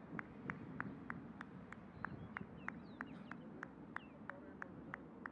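Steady, even ticking at about three ticks a second, over a low background rumble, with a few brief chirps near the middle.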